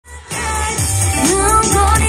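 K-pop song performed live: a female voice singing into a microphone over a backing track with a steady deep bass. The music comes in a moment after the start.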